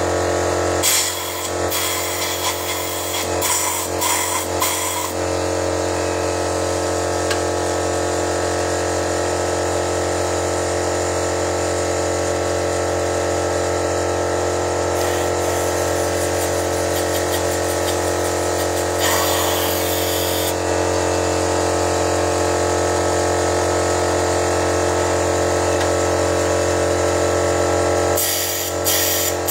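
A motor runs steadily during engine carbon cleaning, giving an even drone with several held tones. Bursts of hissing come about a second in, around the middle and near the end.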